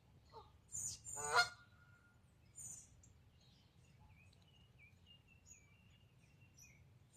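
A goose honks once, short and loud, about a second in. Faint small-bird chirping follows, a run of quick wavering high notes through the second half.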